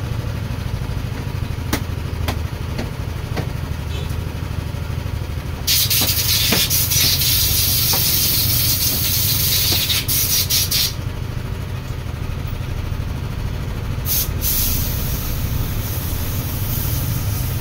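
Motorcycle engine idling steadily, with a loud hiss that starts about six seconds in and cuts off around eleven seconds, then comes back from about fourteen seconds. A few sharp knocks fall in between.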